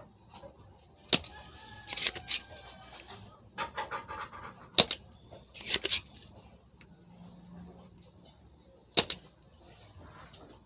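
Spring-loaded desoldering pump snapping, a sharp click each time it is fired to suck solder off the pins of a shorted IC on an amplifier's input-selector board. There are about six snaps at irregular intervals.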